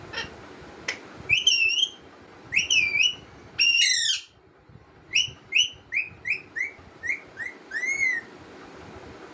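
A young parrot, about five months old, calling. Three longer calls come first, bending up and down in pitch. After a short pause comes a quick run of about eight short calls, each dropping in pitch.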